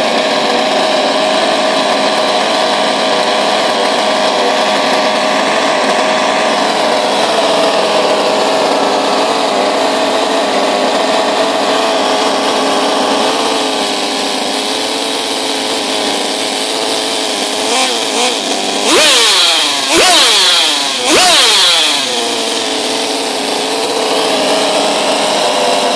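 60cc MTC inline twin-cylinder model engine running steadily on a test bench, then revved sharply three times about three-quarters of the way through before settling back to its steady run.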